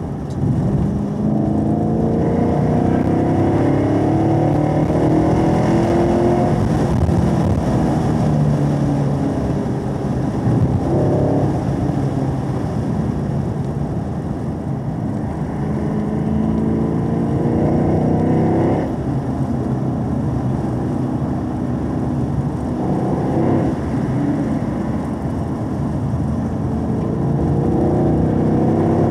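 Chevrolet Camaro SS 1LE's 6.2-litre V8, heard from inside the cabin at track pace, its revs climbing in long pulls and dropping back sharply a couple of times between them.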